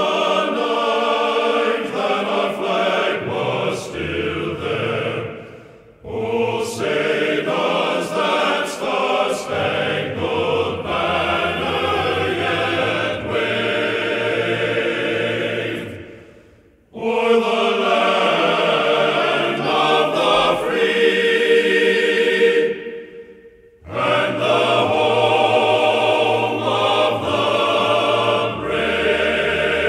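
Choral music: voices singing long held phrases, with the music pausing briefly three times.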